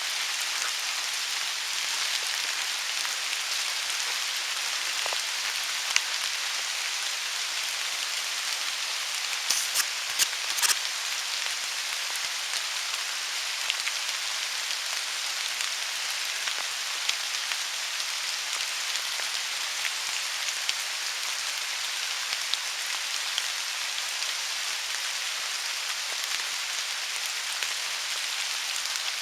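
Steady rain falling, an even hiss, with a few sharp clicks about ten seconds in.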